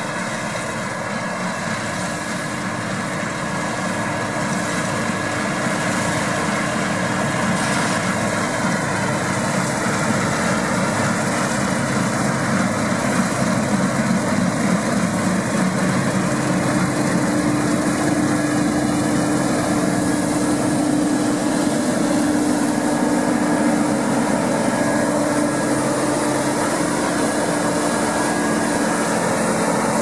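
CLAAS Lexion 570+ combine harvester running while cutting wheat: a steady machine noise of engine and threshing gear with several held tones. It grows louder over the first several seconds, then holds steady.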